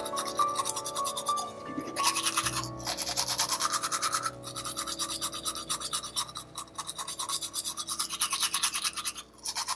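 Toothbrush scrubbing back and forth in quick, even strokes, about five a second, with a few brief pauses. A short run of chiming music notes dies away in the first two seconds.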